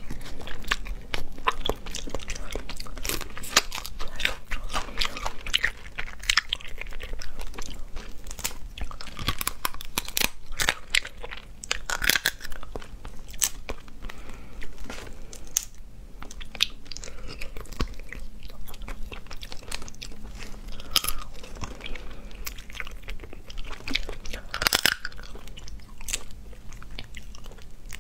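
Close-miked cracking and peeling of cooked crustacean shells by hand, mixed with biting and chewing of the meat: a dense run of sharp crackles and crunches.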